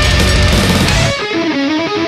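Heavy rock music with electric guitar. About a second in, the full band drops out and leaves a thinner, muffled guitar riff of quick, evenly picked notes.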